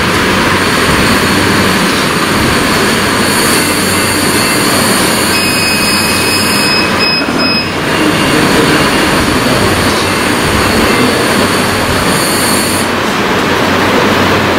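Oxygen rushing through a portable ventilator and its breathing tubing during a test: a loud, steady hiss. A high steady beep from the machine is held for about two seconds midway.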